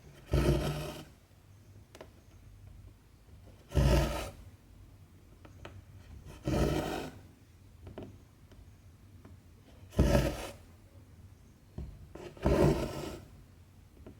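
Two-strand cotton embroidery thread being pulled through 14-count cross-stitch fabric: five pulls, each lasting about half a second to a second, roughly every two to three seconds, with faint ticks of the needle between.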